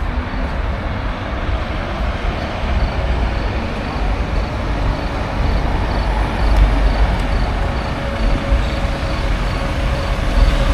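Steady city street traffic noise with a strong deep rumble. A faint high beeping repeats about three times a second from a couple of seconds in.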